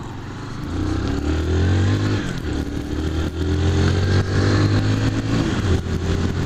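Honda CG 150 Fan's single-cylinder four-stroke engine accelerating. Its pitch climbs from about a second in, drops back and climbs again a few times as it goes up through the gears.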